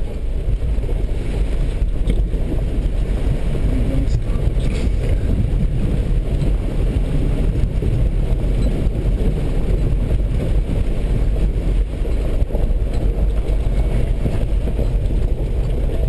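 Vehicle engine and tyres as a steady low rumble, heard from inside the cab while driving slowly through a shallow river ford and up the far bank.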